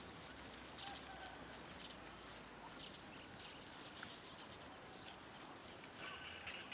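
Rural outdoor ambience: a steady high insect drone over a soft hiss, with faint short chirps and squeaks scattered through it.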